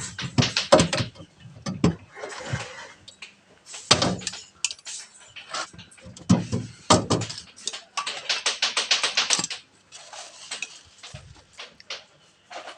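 Metal clinks, knocks and clatter from handling iron angle brackets and shelf parts, with a quick run of regular ticks about eight seconds in.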